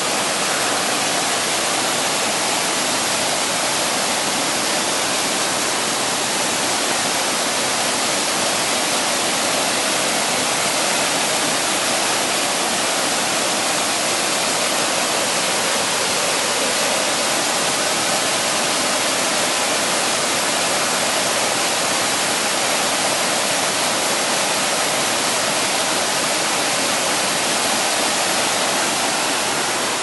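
Mountain stream cascading in white water over rocks and small falls, a steady unbroken rush of water.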